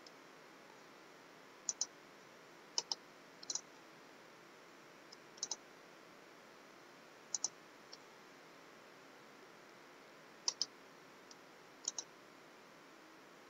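Computer mouse button clicks, mostly in quick pairs like double-clicks, about seven times with quiet gaps between, against faint room hiss.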